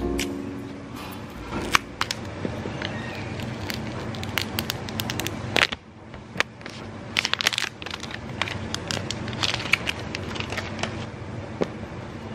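Clear plastic shrink-wrap being peeled off a phone box, crackling and crinkling in irregular bursts.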